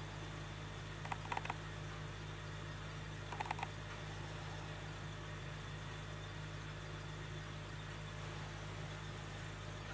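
A hand-turned paraffin-wax candle shell gives two short clusters of light clicks and scrapes, about a second in and again about three and a half seconds in, as it is rotated on a wooden tabletop. A steady low hum runs underneath.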